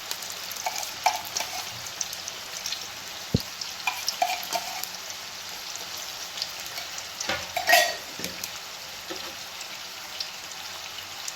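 Hot oil sizzling steadily in a pan, with many small crackles and pops of food frying. About eight seconds in there is one louder scrape or clatter.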